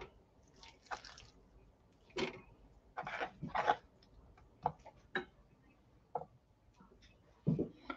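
Handfuls of wet diced raw chicken dropped into a stainless steel scale bowl: a string of separate soft wet slaps and light clicks, roughly a second apart.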